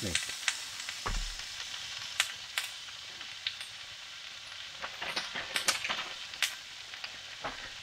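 Steak frying in a hot cast iron pan on a wood stove, sizzling steadily, with scattered sharp pops.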